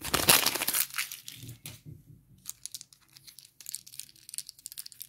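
Close-up crinkling and rustling of a small paper instruction leaflet being handled, loudest in the first second, then lighter scattered rustles and small clicks as a little plastic toy figure is handled.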